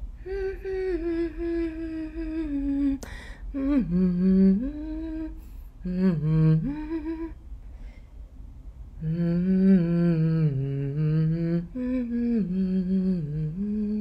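A person humming a slow, wordless melody in about five long phrases of held notes. The notes slide and drop in pitch at the ends of phrases.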